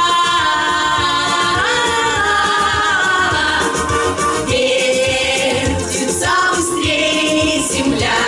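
A female vocal quartet sings in harmony through microphones and a PA, holding long notes, over a live wind band accompaniment.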